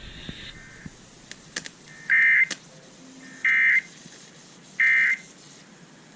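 NOAA Weather Radio SAME digital data bursts: three short, loud, buzzy bursts of data tone, about a second and a half apart. They are end-of-message bursts closing the broadcast severe thunderstorm warning.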